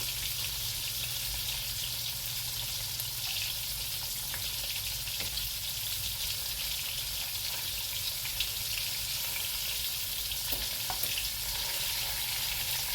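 Chicken drumsticks sizzling as they brown in hot canola oil at frying temperature, a steady frying hiss with a few faint clicks.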